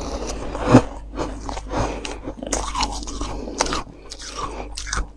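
Freezer frost being bitten and chewed: a dense, irregular run of crisp, icy crunches.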